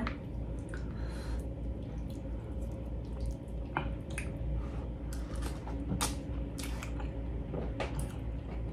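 Close-miked eating sounds of someone chewing fufu with egusi soup: scattered soft smacks and clicks of the mouth and fingers, over a steady low hum.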